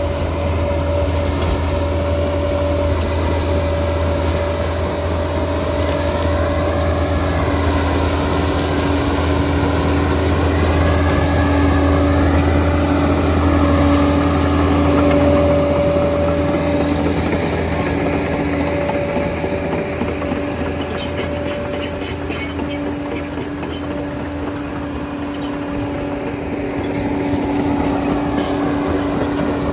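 Liebherr 746 crawler bulldozer running steadily with its diesel engine under load. A whine wavers up and down in pitch through the middle, and a run of clanks and knocks comes in the last third.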